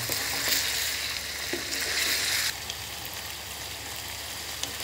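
Chicken pieces frying in ghee in a karahi, sizzling steadily while a wooden spatula stirs them. The sizzle drops abruptly to a softer level about halfway through.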